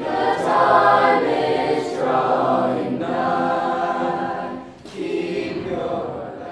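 Student choir singing held chords in several phrases, fading out near the end.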